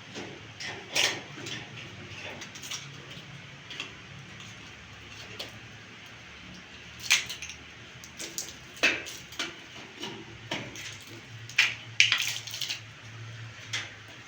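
Irregular sharp clicks and clinks, about a dozen of them, with a cluster near the end: hand tools and hardware being handled and knocked while working on a bed base.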